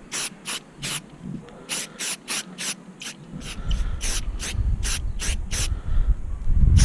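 Aerosol can of spray primer fired in short hissing bursts, about three a second, coating a small part. A low rumble comes in about halfway through and is loudest near the end.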